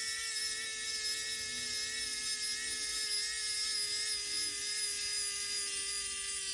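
Small electric screwdriver running steadily, driving the little screw into a tassel zipper pull; its whine sinks slowly in pitch as it goes.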